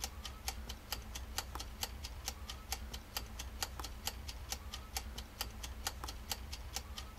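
Mechanical twin-dial kitchen timer ticking steadily, about five ticks a second.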